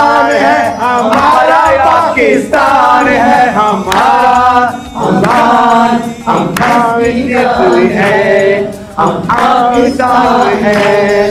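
A group of voices singing a Pakistani patriotic song (milli naghma) together, loudly and in unison.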